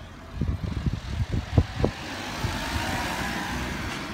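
Vehicle noise swelling and then fading, like a passing vehicle, with wind buffeting the microphone in irregular low thumps during the first half.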